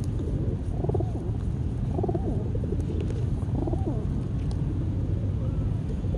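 Pigeons cooing, with repeated short coos overlapping every second or two, over a steady low rumble.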